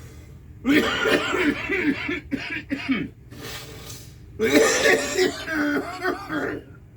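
A man coughing in two long hacking fits, with a breathy rush of air between them. This is the coughing that follows a hit from a cannabis vape cartridge.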